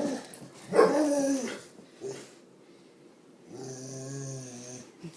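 A dog vocalising: a long call falling in pitch about a second in, a short yelp near two seconds, then a steady low-pitched drawn-out call held for over a second near the end.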